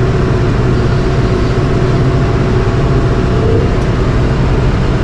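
Mahindra 85P tractor running steadily while it drives a John Deere 459e round baler through sorghum-sudan hay, a constant low engine drone with machinery noise.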